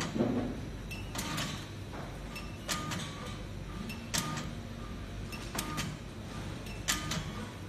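RFID tag encoding machine running with a steady hum, its mechanism giving a sharp clack about every one and a half seconds as the tag web steps forward, each clack carrying a brief faint tone.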